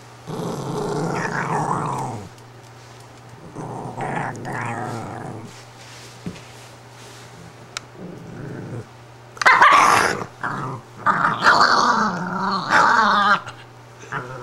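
Italian greyhound growling in repeated bouts, with a sharper, louder outburst about two-thirds of the way through. She is upset at being disturbed in her bed.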